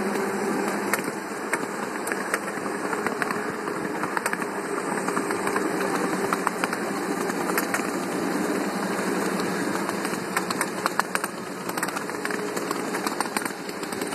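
Ride-on scale model diesel locomotive running steadily along its track: a continuous mechanical hum from its drive, with irregular clicks and rattles from the wheels on the rails, thickest about ten seconds in.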